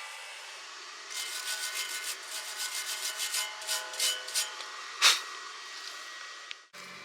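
Rapid back-and-forth scraping strokes on metal, about five a second, with one louder stroke about five seconds in.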